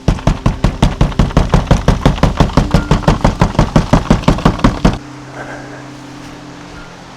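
Rapid series of loud knocks, about six a second, as from something being struck over and over, stopping abruptly about five seconds in.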